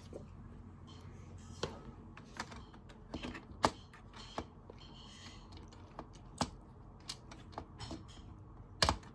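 Irregular light clicks and taps of small plastic toy pieces being handled and picked out one at a time, with a louder knock about a third of the way in and another near the end.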